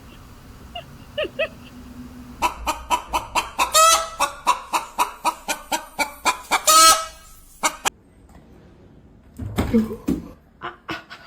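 A chicken clucking in a quick run, about four or five clucks a second, with two louder squawks in the middle of it.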